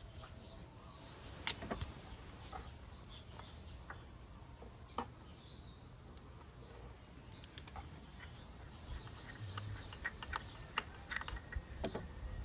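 Pliers and fingers gripping and twisting a tape-wrapped plastic oil dipstick cap loose from a scooter's engine case: scattered light clicks and taps, coming thicker toward the end.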